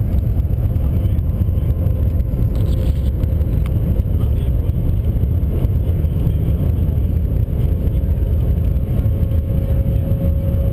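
Cabin noise inside the Shanghai Maglev train travelling at speed: a steady low rumble, with a faint whine that rises slightly in pitch near the end.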